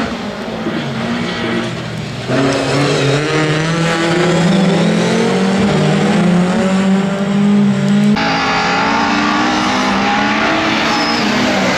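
Rallycross race cars' engines running hard as the cars pass through the corners, their pitch rising and falling with the revs. The sound jumps abruptly louder about two seconds in and changes again about eight seconds in.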